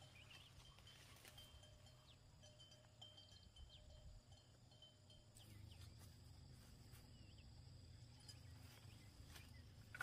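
Near silence: faint rural outdoor ambience with a few soft rustles and faint high chirps.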